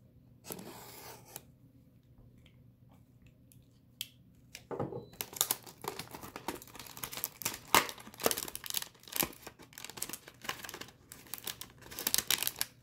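A 2020-21 Panini Select trading-card hanger box being ripped open: a short rustle, then from about five seconds in a dense run of tearing and crinkling of its cardboard and wrapper.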